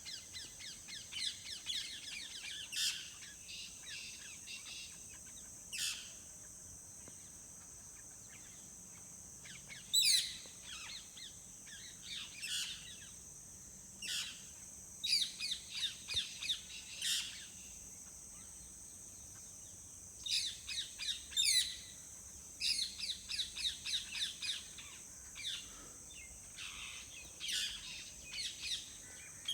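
Songbirds chirping and calling, in short runs of quick repeated chirps and trills over a steady high hiss.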